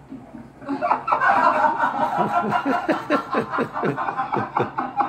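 A person laughing in quick repeated chuckles, starting about a second in, over a steady background of sound from the TV.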